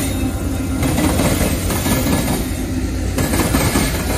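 Canadian Pacific freight train passing close by: a steady low rumble of its diesel locomotives' engines and the covered hopper cars rolling over the rails.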